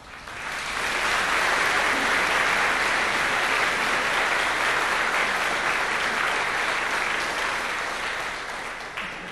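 Audience applauding, swelling to full within about a second, holding steady, then thinning near the end with a few separate claps.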